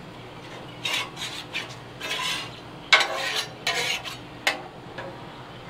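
Stainless steel spatula scraping across the steel top of a Blackstone 36-inch griddle, spreading a pool of oil: a series of about six short scrapes, a couple of them starting with a sharp click of the blade on the plate.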